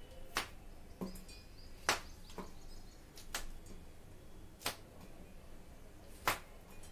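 Fresh green chillies being broken by hand: five sharp snaps, about a second and a half apart.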